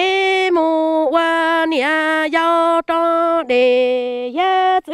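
A single voice singing Hmong kwv txhiaj (chanted sung poetry) unaccompanied, in long held notes that drop in pitch at the ends of phrases, with short breaks for breath.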